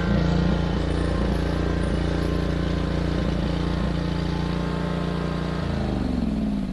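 Wright Stander stand-up mower's engine running steadily on its newly replaced carburetor, then switched off near the end and winding down to a stop.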